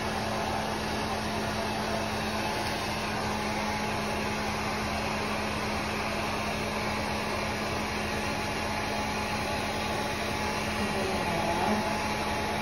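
Small handheld electric hair dryer running steadily, blowing air into a towel to dry a kitten: an even whirr with a low hum and a thin whine.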